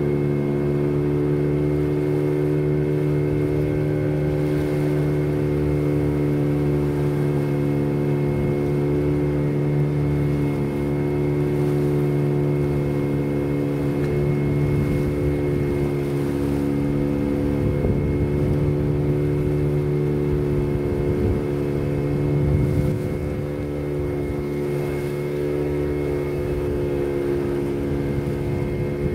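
Small fishing boat's engine running steadily at an even pitch.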